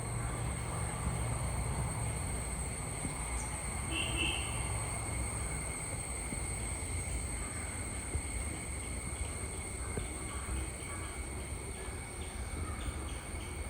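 Tropical countryside ambience: a steady, high-pitched drone of insects such as crickets over a low, steady rumble, with a brief bird call about four seconds in and a run of faint ticking chirps near the end.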